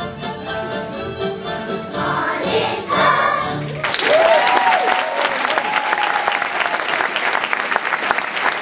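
A choral song plays to its final sung notes, then about four seconds in it stops and an audience breaks into steady applause, with a couple of whoops early in the clapping.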